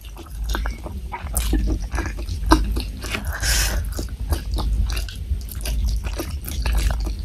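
Close-miked wet chewing and lip smacks from eating soy-braised boneless chicken feet with rice. A brief hissing noise comes about three and a half seconds in.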